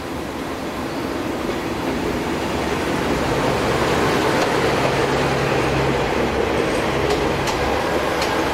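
Diesel railcars of the Honobono SUN-IN train rolling past close by: a steady rolling rumble that grows louder over the first few seconds, with a few faint rail-joint clicks near the end.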